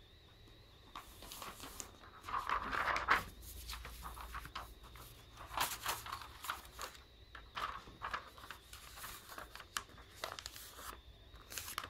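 Sheets of paper being handled and shifted, rustling irregularly, with a louder crinkle about two to three seconds in and scattered small rustles and taps after it.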